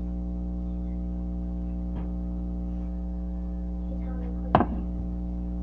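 Steady electrical mains hum with a stack of even overtones, with a single sharp knock about four and a half seconds in.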